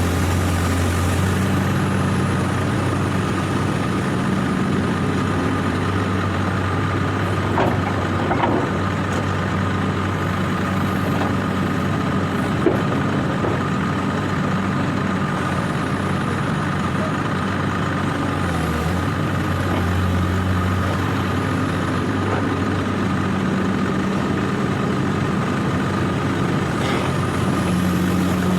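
Heavy diesel engine of earth-moving machinery running steadily, its low hum easing and swelling slightly, with a steady high-pitched tone above it. A few light clicks and one sharp tick about halfway through.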